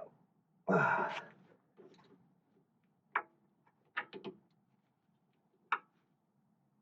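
A brief vocal sound about a second in, then a few sharp metallic clicks, three close together near the middle, from a wrench tightening the brake hose fitting on a disc-brake caliper.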